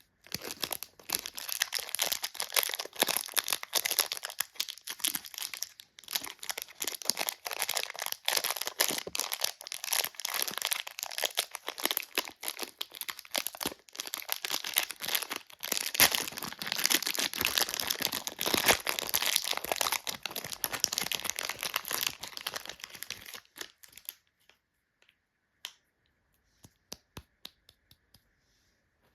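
Crinkly plastic lollipop wrappers being handled and torn open: a dense run of crackling and rustling that thins to scattered ticks a few seconds before the end.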